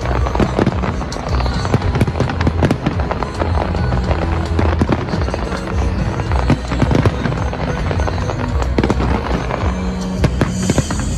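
Fireworks bursting and crackling in quick succession over loud music with a steady bass.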